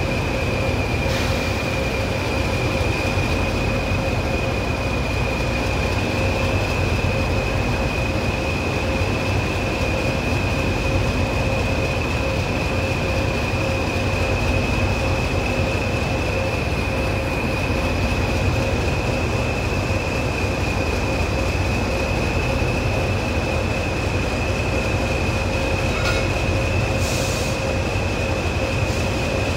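English Electric Class 20 diesel locomotive idling at a standstill: the steady low rumble of its eight-cylinder engine under a constant high turbocharger whistle. Two brief hisses, one about a second in and one near the end.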